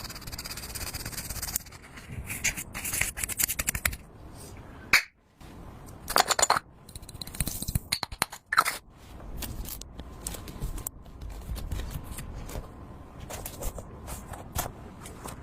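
Slime being mixed and handled: irregular scraping, crackling and clicking.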